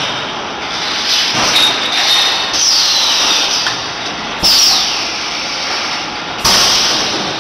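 Machinery running with a steady clatter and hiss. Two sudden louder bursts of hiss come about two seconds apart in the second half.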